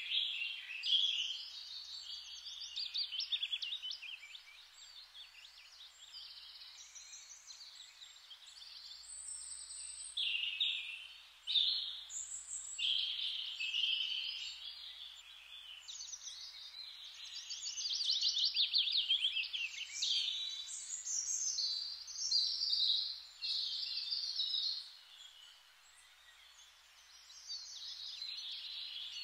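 A small songbird singing, high-pitched chirping and fast trilled phrases that come and go with short pauses.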